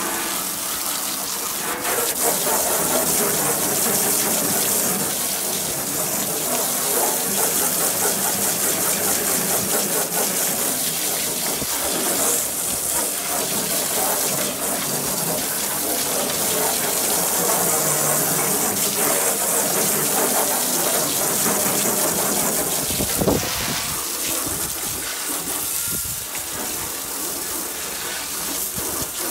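Garden hose pistol-grip spray nozzle jetting water into the grill's metal firebox, rinsing off the foaming cleaner and loosened grime: a steady hiss with water spattering on sheet metal. There is one brief knock about three-quarters of the way through.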